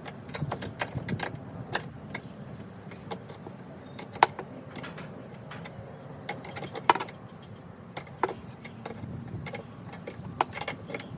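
Irregular metallic clicks and clinks of hand tools and parts as an oil catch can is fitted to its mounting bracket, with two sharper knocks about four and seven seconds in.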